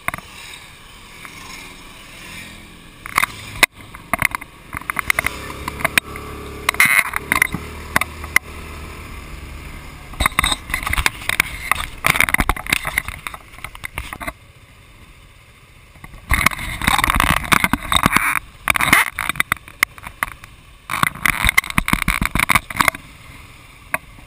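Wind buffeting the microphone of a camera mounted on a moving motor scooter, in irregular gusts, with the scooter's engine running underneath. The buffeting eases briefly a little past halfway.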